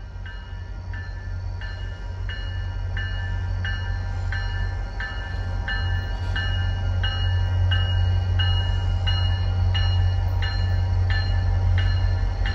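MBTA F40PH-3C diesel-electric locomotive approaching, its engine rumble growing steadily louder. Its bell rings over it at an even beat of about two strokes a second.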